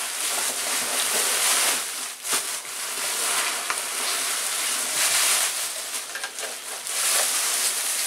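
Plastic bubble wrap crinkling and crackling as it is handled and pulled open around a telephone, in uneven waves with a short lull about two seconds in.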